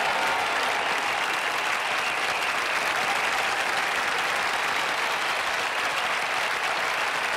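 Large crowd applauding, a dense steady clapping that holds at one level.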